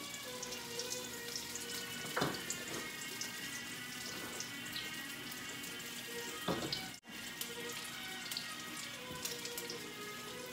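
Chicken frying in hot oil in a pan, a steady faint sizzle with small crackles, and two knocks about two and six and a half seconds in.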